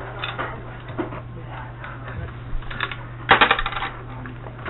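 Carousel Classic gumball machine bank being worked by hand: light clicks from the coin slot and turning knob, then, about three and a half seconds in, a short rattling clatter as the mechanism dispenses.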